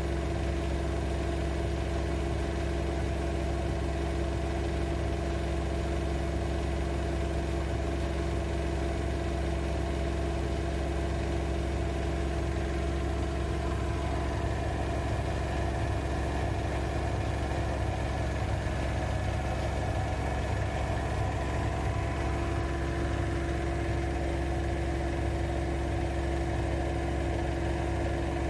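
AEG Lavamat L6FB67490 front-loading washing machine running steadily, a constant hum with a few steady tones that hold without a break.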